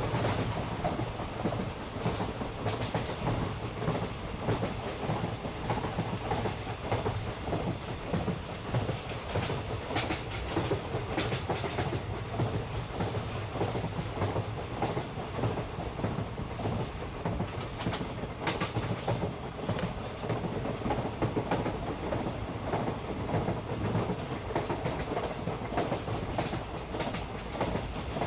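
Miniature toy train running along its track: a steady rumble with wheels clattering over the rail joints and a few sharper clicks.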